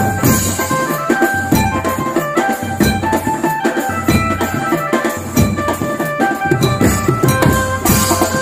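Music with drums and percussion under a melody, in a traditional or folk style.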